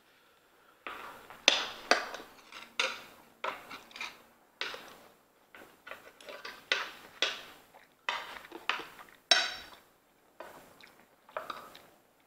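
Metal chopsticks and a fork clinking and scraping against an aluminium foil pan and lobster shell as food is picked out: a dozen or more irregular sharp clicks and scrapes.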